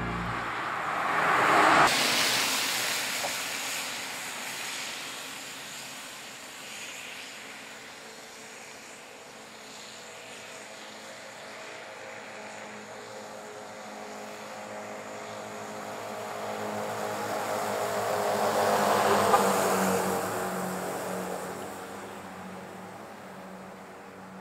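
Vehicles passing on a road. One goes by quickly about two seconds in. A second builds slowly, is loudest near the nineteen-second mark, and fades away.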